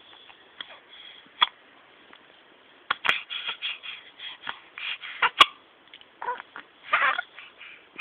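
A baby hiccuping: a few short, sharp hics one to two seconds apart, the loudest about five seconds in, with small breathy sounds in between.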